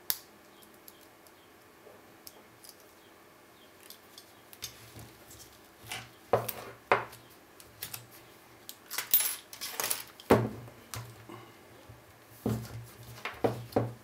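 Master Pro Series 6127 padlock being handled: a sharp metallic click right at the start, then from about five seconds in an irregular run of metal clicks, clacks and knocks as the opened lock's steel shackle and body are worked and set down on a wooden table.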